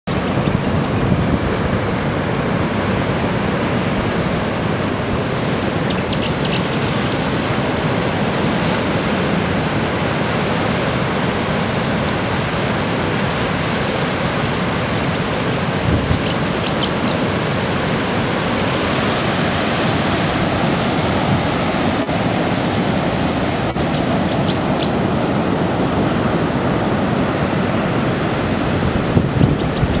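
Rough ocean surf breaking on a sandy beach at high tide: a steady, unbroken rushing wash of many waves, with wind.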